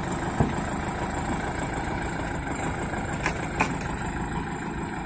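Japanese compact tractor's engine running steadily at low revs, with a few short knocks, one near the start and two close together past the middle.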